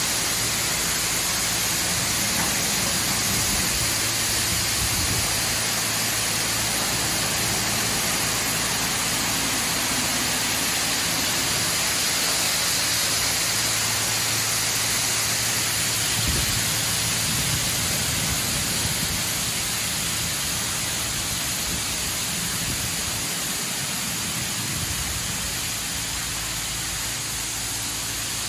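High-pressure water jets of a Superior Sidetrac 700 touch-free car wash spraying onto a car: a steady rush of spray hitting the body, easing slightly about two-thirds of the way through.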